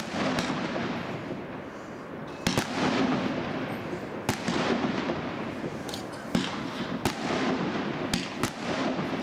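A fireworks cake (multi-shot battery) firing aerial shells that burst in the sky. There are about seven sharp bangs, irregularly spaced a second or two apart, over a continuous rushing noise.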